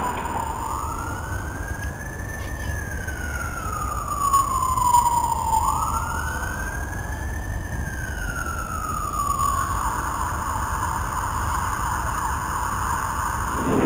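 An emergency vehicle's siren wailing in two slow cycles, each rising quickly and then falling away slowly, over a low rumble.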